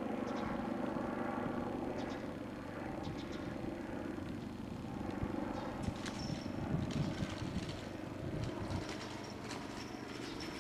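Train approaching and running past a level crossing: a steady low rumble, then from about six seconds in irregular clicks of wheels over rail joints, with brief thin high tones.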